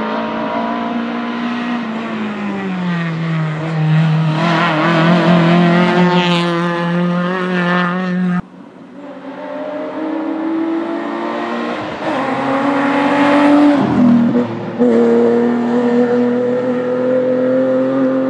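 Racing car engines on a hill-climb course: an engine note drops in pitch and then holds steady under load, with a wavering squeal over it a few seconds in. The sound breaks off abruptly about eight seconds in, and another engine follows, rising and falling through the gears.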